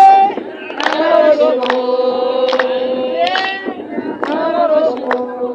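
A group of women singing together without instruments, holding long notes with sliding pitch, with sharp short hits about once a second.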